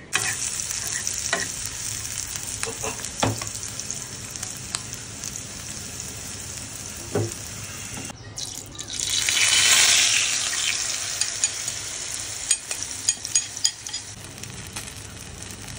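Chopped onion and tomato frying in oil on a flat iron tawa, a steady sizzle. After a brief break about eight seconds in, the sizzle swells loudly and then slowly settles, with a few light clicks near the end.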